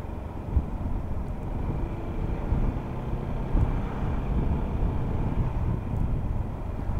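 Riding noise at a helmet-mounted action camera on a Yamaha XMAX 300 scooter: a steady low wind rush with small gusts, and the scooter's single-cylinder engine running underneath.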